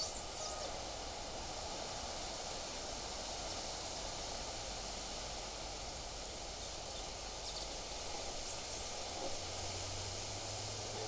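Wind blowing through trees and brush, a steady rustling hiss with a few brief higher rustles or chirps; a low hum comes in near the end.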